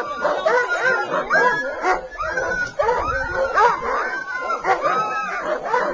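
A pack of sled dogs barking and yelping together, many short high calls overlapping without a break.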